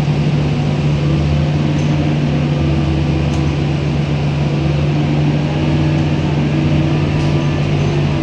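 Scania K230UB city bus under way, heard inside the cabin: the engine and drivetrain run with a steady low drone over a rumble of road and body noise.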